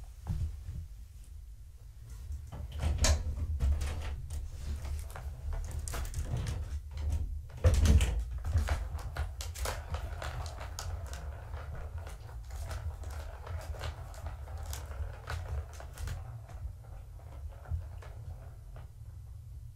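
Kittens playing with a plastic Catit track-ball toy: irregular clicks, knocks and rattles as the ball rolls around its circular track and is batted, with a couple of louder thumps about 3 and 8 seconds in. A steady low hum runs underneath.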